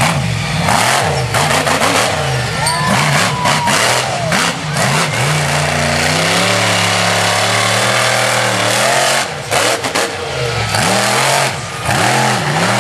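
Monster truck engine revving hard, its pitch swinging up and down again and again, held high for a few seconds in the middle before dropping back into more quick rises and falls.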